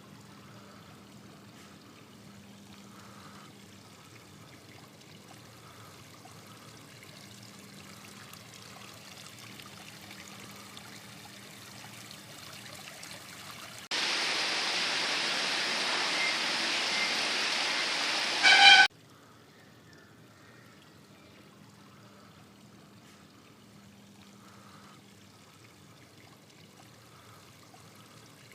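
Water running over a travertine marble fountain: a faint, steady trickle, with a much louder rush of water about halfway through that starts and stops abruptly and ends in a short, loud burst.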